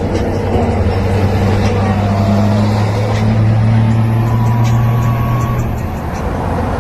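Motor vehicle engine running with a steady low hum that creeps slightly up in pitch, then drops away about six seconds in.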